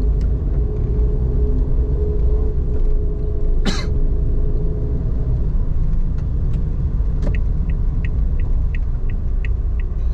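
Car interior noise while driving slowly on wet streets: a steady low road rumble with a tyre or engine tone that fades out about halfway. There is a sharp single click near the middle, then from about 7 seconds in the turn-signal indicator ticks evenly, about three ticks a second, as the car nears an intersection.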